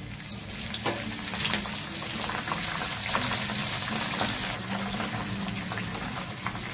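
Fresh curry leaves sizzling and crackling in hot oil in a small steel tempering pan, with fried peanuts, mustard seeds and cumin. The sizzle swells over the first couple of seconds, then spits and crackles steadily.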